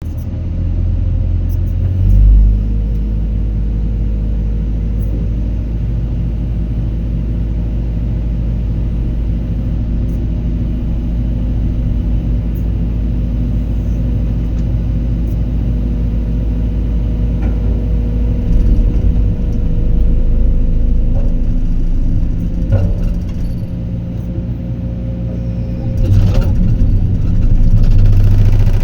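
Heavy-equipment diesel engine running steadily, with a brief surge about two seconds in and a louder stretch near the end; a few knocks sound over it.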